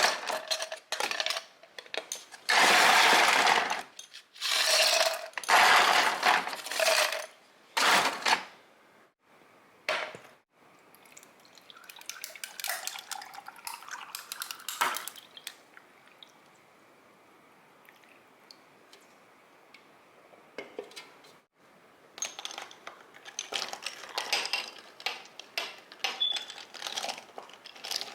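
Household objects being handled, with clinks and rushing noises: several loud bursts in the first eight seconds, then faint scattered clicks and clinks.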